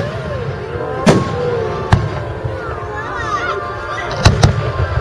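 Aerial fireworks shells bursting: four sharp bangs, the last two close together near the end.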